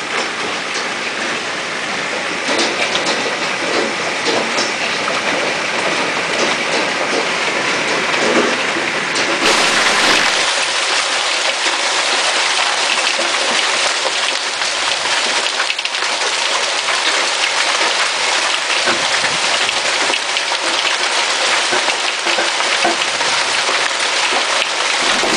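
Hailstones pelting the house in a heavy storm: a loud, dense, continuous clatter of countless small impacts. The deeper part of the din drops away about ten seconds in.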